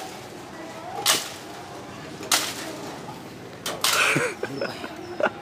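A long pole swung up into a mango tree to knock down green mangoes: two sharp whacks about a second apart, then a longer rustling crash through the branches and leaves.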